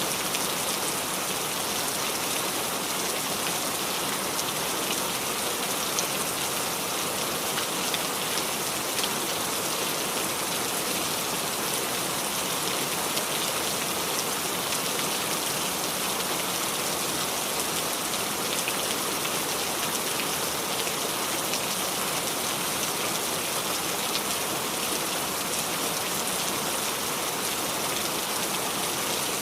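Steady rain falling on the leaves of a small tree, a dense patter of drops with fine individual ticks.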